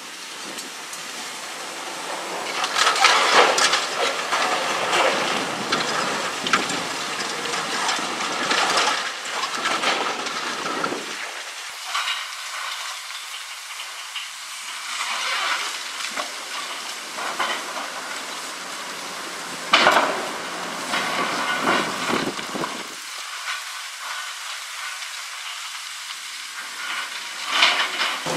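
Concrete silo wall being crunched by a long-reach excavator's demolition crusher jaws, with broken concrete and rubble crackling and clattering down in a steady hiss-like rush. There is a sharp crack about twenty seconds in and another near the end.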